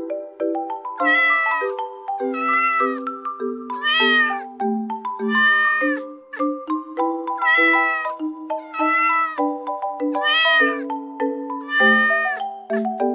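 A kitten meowing eight times, in two runs of four about a second apart, each meow rising and then falling in pitch. Light background music on a mallet instrument like a marimba plays underneath.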